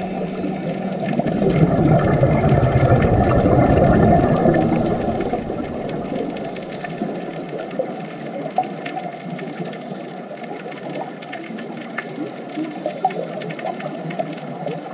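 Underwater water noise: a rush of bubbling that swells over the first few seconds, then eases into lighter crackling and popping.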